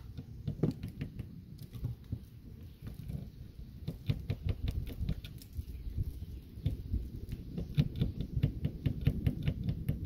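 Keys on a keyring jingling and a key clicking and scraping against a corroded RV storage-compartment cam lock as it is pushed and jiggled. The key won't go all the way in: the lock is seized with corrosion. The clicks come thicker from about four seconds in.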